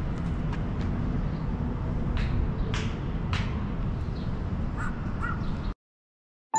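A crow cawing, three harsh calls in quick succession and a few fainter calls after, over a steady low outdoor rumble. Everything cuts off abruptly near the end.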